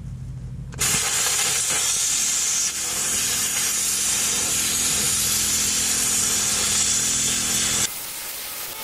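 Hypertherm Powermax 45 XP plasma cutter arc cutting through thick plate steel: a low hum, then about a second in a loud, steady hiss of the plasma arc and air jet starts suddenly, running for about seven seconds before cutting off suddenly near the end as the trigger is released.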